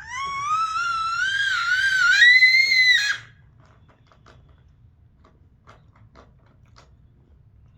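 Young child letting out one loud, very high-pitched scream of about three seconds that rises in pitch and cuts off suddenly. Faint clicks follow.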